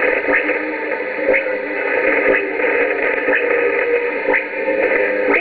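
Shortwave radio receiver tuned to 4865 kHz, in a lull with no clear speech: a weak AM signal in static and hiss, with steady whistling tones of interference and a faint click about once a second.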